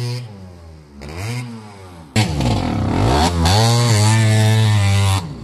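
1989 Kawasaki KX80 two-stroke dirt bike engine revving under riding, its pitch swooping down and back up. About two seconds in it cuts abruptly to a louder stretch where the revs dip and climb, then hold high.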